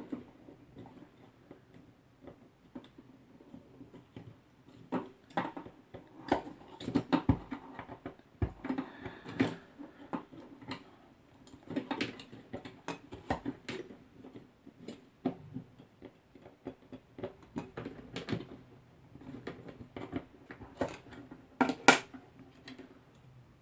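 Hands working Cat6 network cable: scattered light clicks, taps and rustles of the wires and tools being handled.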